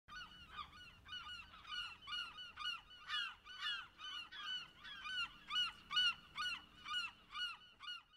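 A flock of birds calling over and over, short pitched cries at about two a second, some overlapping.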